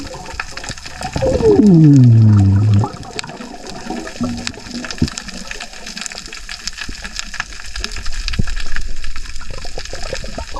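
Water noise with many scattered sharp clicks. About a second in, a loud groan falls in pitch and lasts nearly two seconds.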